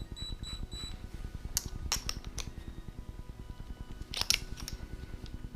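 Scattered sharp metallic clicks and knocks over a low rumble, loudest about four seconds in. They come from a small pipe being worked over a bent RC car axle held in a drill chuck, levering the soft metal to bend it straight.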